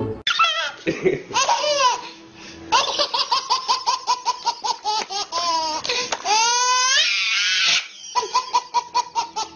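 A baby belly-laughing hard, in quick rhythmic bursts of about five or six laughs a second, broken by high rising squeals around five to seven seconds in.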